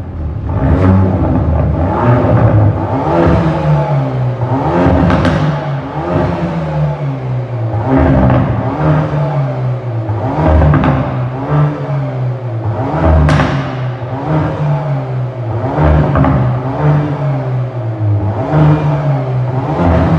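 Hyundai i30 N Performance's turbocharged 2.0-litre four-cylinder, heard through its stock exhaust, revved again and again, its pitch climbing and dropping back about every two to three seconds. A few sharp cracks come from the exhaust as the revs fall.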